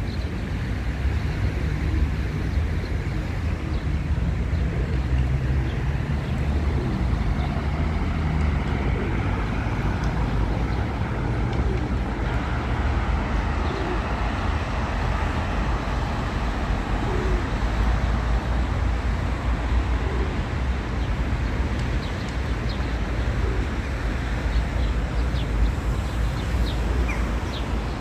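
Steady city street ambience of road traffic, a continuous low rumble with a haze of tyre and engine noise.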